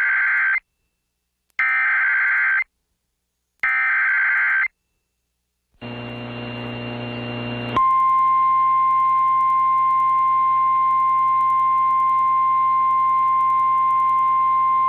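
Emergency Alert System SAME header: three harsh buzzing data bursts about a second long, two seconds apart. A short stretch of low hum and hiss follows, then about eight seconds in a single steady high attention tone starts and holds. This is the National Weather Service's 1050 Hz warning alarm, signalling that an emergency alert, here a flash flood warning, is about to be read.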